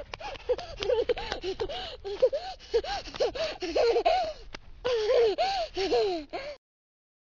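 A person panting hard in short voiced gasps, several a second, that break off suddenly near the end; the breathing of someone worn out and tired.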